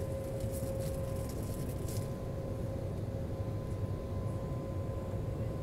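Jet airliner's engines at low power as it taxis and turns on the runway, a steady low rumble heard inside the cabin, with a thin whine that stops about a second in and a fainter higher tone that carries on.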